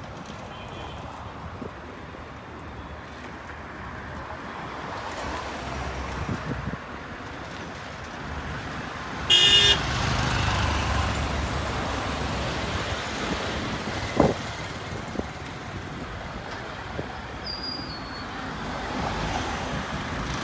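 Steady road traffic noise, with one short vehicle horn toot about nine seconds in and a brief sharp sound a few seconds later.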